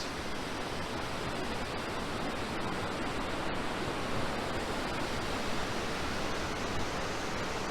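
Steady rushing of a multi-tiered waterfall and its rapids, an even, unbroken wash of falling water.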